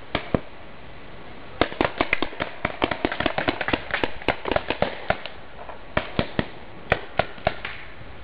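Paintball markers firing: two shots, then a rapid string of sharp pops for about three seconds, and a few more shots near the end.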